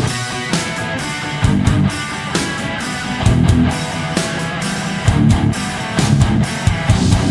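Background rock music with distorted electric guitar and a steady drum beat.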